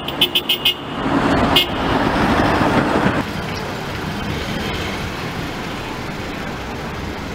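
Street traffic, cars driving on a city road. A quick run of short high beeps comes in the first second and another about a second and a half in. About three seconds in the traffic noise drops to a lower, steadier level.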